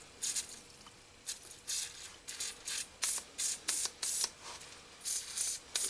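Aerosol can of PB Blaster penetrating oil sprayed in a rapid series of short hissing spurts, the can nearly empty.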